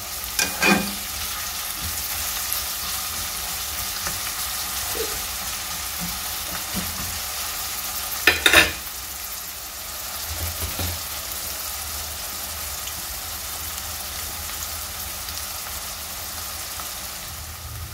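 Thinly sliced onions sizzling in hot oil with a steady hiss, stirred at first with a metal slotted spoon. About eight and a half seconds in, a brief clatter of the metal spoon knocking against the pot as it is lifted out.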